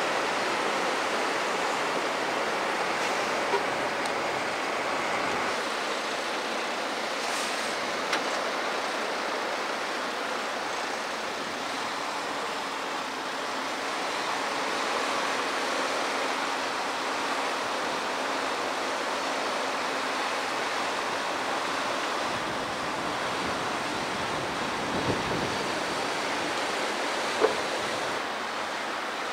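Steady wash of small waves breaking on a sandy beach, with a heavy military truck's engine running faintly underneath, and a single sharp knock near the end.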